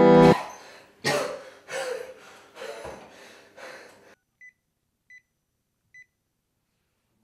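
A man's breathy laugh in five bursts that fade away, followed by an electronic device giving three short, high beeps about three-quarters of a second apart.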